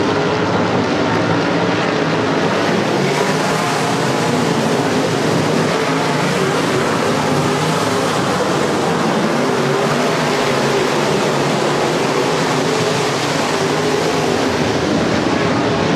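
A field of IMCA Modified dirt-track race cars running together, their loud engines blending into one steady, dense racket.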